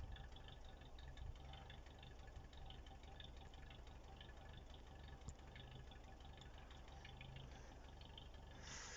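Near silence: a faint low hum with scattered faint ticks, and a short soft hiss near the end.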